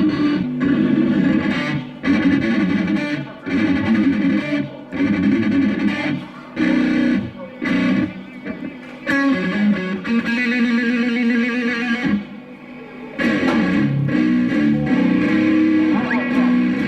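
Distorted electric guitar through an amplifier playing short riffs and held notes during a sound check, with brief gaps between phrases. About ten seconds in, one note is held with vibrato.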